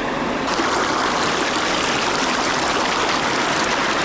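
Rushing stream water: a loud, steady hiss that gets fuller about half a second in.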